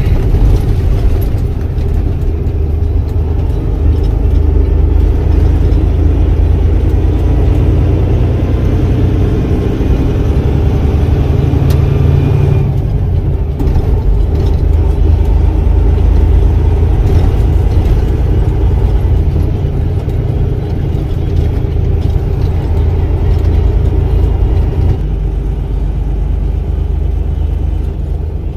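Tractor-trailer's diesel engine running under way, heard from inside the cab, as a steady low drone with road noise; its tone shifts about halfway through and the low end eases near the end.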